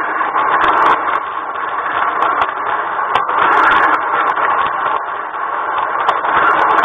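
LGB garden-railway train running along the track, a steady mechanical drive noise with scattered clicks from the wheels on the rails, picked up close by a camera riding on the train.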